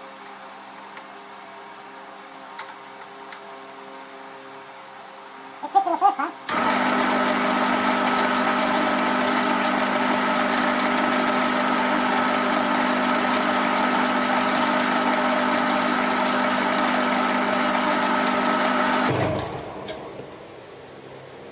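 Metal lathe turning an aluminium disc. A low steady hum, a few clicks about six seconds in, then a much louder, steady mechanical whine for about twelve seconds that dies away near the end.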